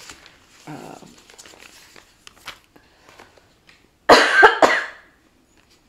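A woman coughing into her elbow, a short fit of about three coughs about four seconds in: the cough of someone sick this week. Before it, faint rustling from handling the cardboard-backed kit packaging.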